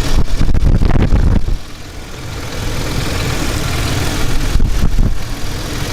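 Mercedes-Benz M112 V6 engine running at idle. For the first second and a half and again briefly near the end, a louder low rumble with crackly knocks sits over the running.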